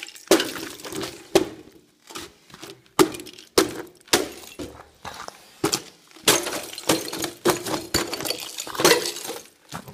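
Ice being broken up and knocked out of a frozen metal pig waterer: a run of sharp cracks and clinks, roughly one or two a second.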